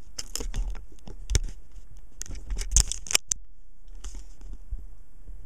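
Scratchy clicks and scrapes of handling on a workbench, a cluster of sharp ticks over the first three seconds, then quieter.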